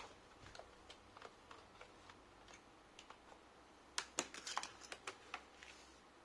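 Faint, scattered light clicks and knocks from handling a laptop power adapter and its cable, with a quick cluster of sharper clicks about four seconds in.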